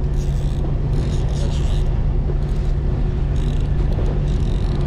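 A boat's engine running with a steady low drone. Several short bursts of higher hissing noise come and go over it.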